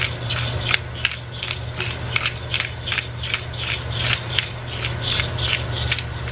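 Hand pepper grinder being twisted over a pan: a steady run of gritty, crunching strokes, roughly three to four a second.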